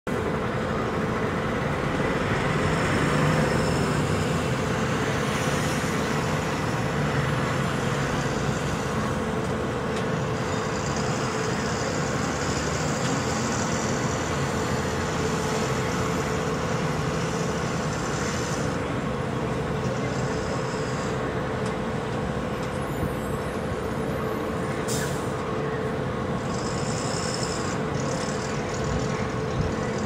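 Steady, traffic-like mechanical rumble with a constant hum. Stretches of high hiss come and go, and one sharp click sounds about 25 seconds in; no run of woodpecker pecking stands out.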